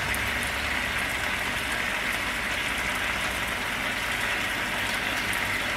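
Chicken breasts frying in oil in a skillet: a steady sizzle with fine crackles.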